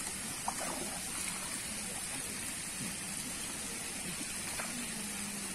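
Quiet, steady outdoor background noise with a water-like trickling hiss and a faint high steady hiss above it; a single light click about half a second in.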